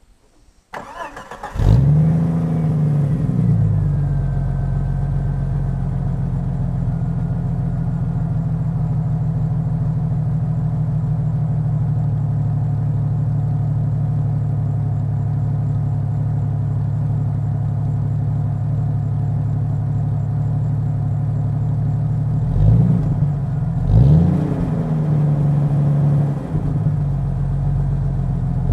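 A 1994 Jeep Cherokee XJ's 4.0-litre straight-six, breathing through a Magnaflow high-flow catalytic converter and a 26-inch Cherry Bomb glasspack, cranks briefly and starts warm about a second and a half in. It flares up and settles into a steady idle. Near the end the throttle is blipped twice in quick revs.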